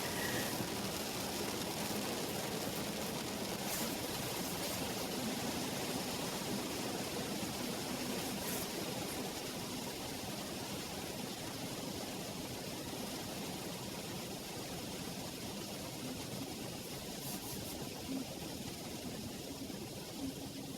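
Rain falling on a car, heard from inside the cabin as a steady hiss with a few faint ticks of drops.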